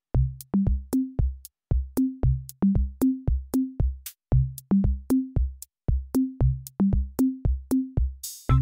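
Background music: a drum-machine beat with a deep kick and short pitched tom-like drums over ticking hi-hats, starting suddenly out of silence. Near the end a swish and held synth chords come in.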